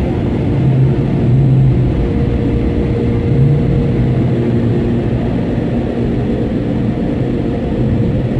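Automatic car wash air-dryer blowers running, heard from inside the car's cabin: a loud, steady rumble with a low hum in it.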